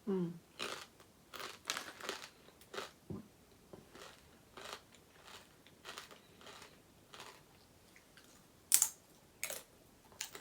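A person crunching and chewing sweet potato crisps: a run of short crunches, close together for the first few seconds, then fainter and spaced out, with one sharper crunch near the end.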